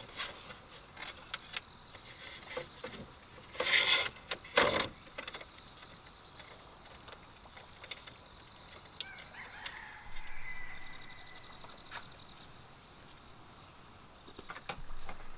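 Bamboo poles knocking and clattering as they are handled, with two loud knocks about four seconds in. A rooster crows once around ten seconds in.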